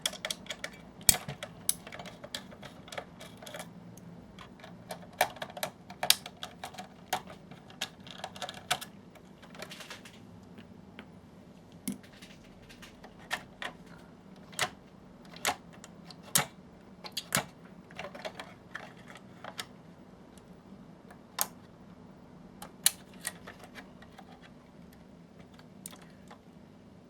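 Irregular clicks and taps of small plastic and metal parts being handled while a cheap projector's circuit board is worked loose. The clicks come thick and fast at first, then thin out to about one a second, over a faint steady hum.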